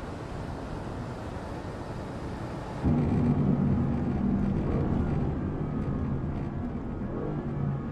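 Mercedes-AMG GT's twin-turbo V8 at speed: a steady rush of wind and road noise, then about three seconds in a louder, steady low engine drone heard from inside the cabin.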